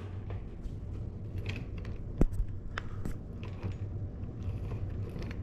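Scattered light clicks and taps from handling bicycle parts and tools, with one sharper click about two seconds in, over a steady low hum.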